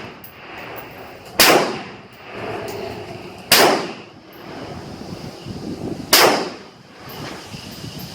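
Three rifle shots from a Ruger Mini-14 semi-automatic firing .223, spaced about two to two and a half seconds apart, each followed by a short echo.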